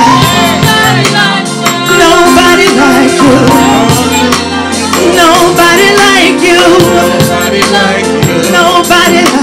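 Live gospel praise-and-worship music: a band with sustained chords, singing voices and steady percussion.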